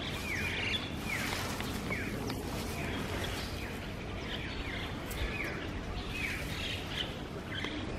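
Small birds chirping over steady outdoor background noise: many short calls, each sliding quickly downward in pitch, repeated throughout.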